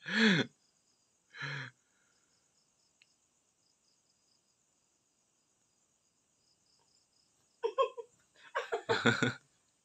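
Crickets chirping steadily in the background. Short low vocal sounds stand out over them: one at the start that drops in pitch, another about a second and a half in, and a quick run of them near the end.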